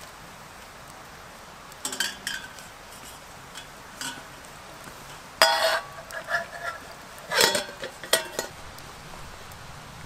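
Metal camping pots clinking and clanking as they are hung on a wooden pothanger over a campfire: scattered knocks, some with a short metallic ring, the loudest about halfway through and again about three quarters in.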